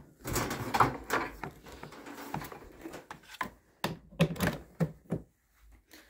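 Rummaging among mains cables and a plug: rustling and scraping, then a run of sharp clicks and knocks as the plug is handled and pushed in.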